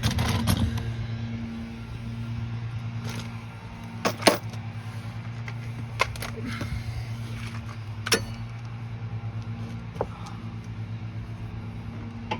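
Metal tools clinking against the rear sway bar link's lower bolt and surrounding suspension: several sharp separate clinks, a pair of them about four seconds in, over a steady low hum.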